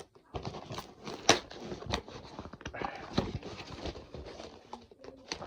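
Toy packaging being handled and opened by hand: an irregular run of clicks, taps and scrapes on cardboard, with one sharper snap about a second in.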